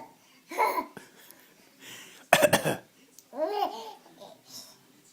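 A baby's pretend coughs: a short cough about half a second in and a louder one about two and a half seconds in, followed by a brief high-pitched vocal sound that rises and falls.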